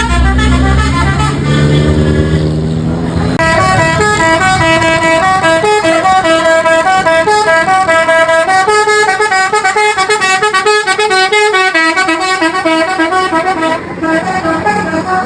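Tour bus's multi-tone 'telolet' musical air horn (Basuri type) playing a fast tune, several tones stepping quickly from note to note, from about three seconds in until just before the end. At the start a lower sound rises in pitch.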